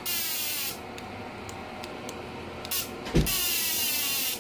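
The TIG welding machine's high-frequency arc starter firing a hissing spark from the torch tip to the workpiece, in two bursts: a short one at the start and one of about a second near the end, with a thump just before it. The spark now jumps as it normally should.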